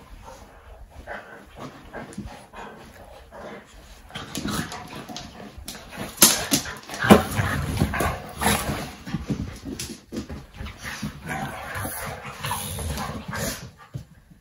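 A fox red Labrador puppy and a chocolate Labrador play fighting: irregular yips, whimpers and barks mixed with scuffling, loudest about halfway through.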